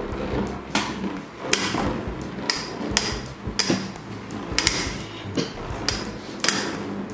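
Two Infinity Nado metal spinning tops battling in a plastic stadium: sharp metallic clashes about once a second as they strike each other, about eight in all, over the steady whir of the spinning tops on the plastic bowl.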